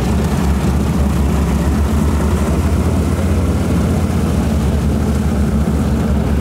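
The radial engine of a WWII single-engine propeller trainer running steadily at low taxiing power, a deep, fast-pulsing drone.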